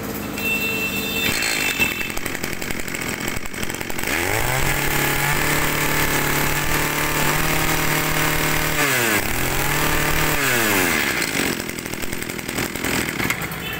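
Ryobi two-stroke brush cutter engine being test-run. It runs rough at idle, then about four seconds in it revs up to a high, steady whine for about five seconds. The throttle is briefly let off, it revs up again, and then it drops back to idle near the end.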